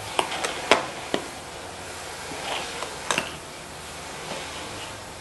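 Sharp clicks and taps of a cardboard camera box and its packaging being handled and pried at: four in the first second or so, the third the loudest, and a quick pair about three seconds in, with faint rustling between.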